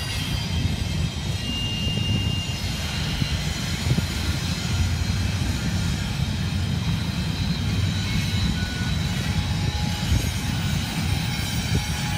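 Double-stack intermodal freight train rolling past, a steady low rumble, with faint thin high wheel squeals now and then.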